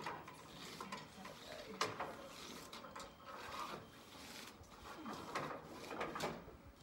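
Synthetic tent fabric rustling and crinkling as it is pulled and smoothed by hand, with a few sharp clicks mixed in as a tent pole is fed through its sleeve.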